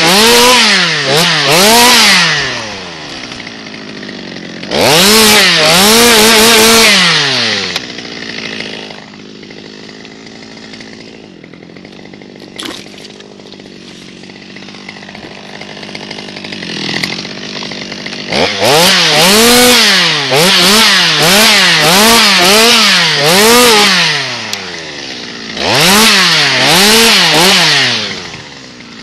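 Stihl MS 200T top-handle two-stroke chainsaw cutting pine branches, revved in short bursts with the engine pitch rising and falling on each squeeze of the throttle. It drops to idle for about ten seconds in the middle, then revs again in a run of bursts.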